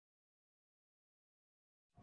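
Silence: the sound track is blank, with sound cutting back in abruptly at the very end.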